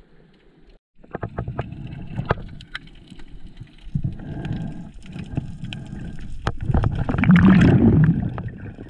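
Muffled underwater sound through a camera housing: water rushing and many small clicks and knocks as a freediving spearfisher swims. After a near-silent first second it builds to its loudest, a sharp crack and a surge of water about seven seconds in, when the band-powered SEAC speargun is fired and misses.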